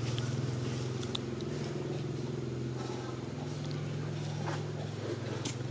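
A motor running with a steady low hum, and a few sharp clicks near the end.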